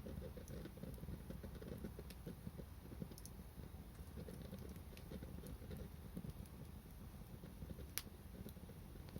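A bonfire burning: a low, flickering rumble of flames with scattered small crackles, and one sharp pop about eight seconds in.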